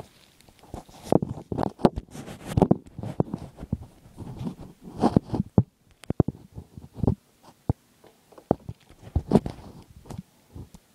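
Handling noise close to the microphone: irregular rubs, scrapes and knocks, with no steady sound underneath.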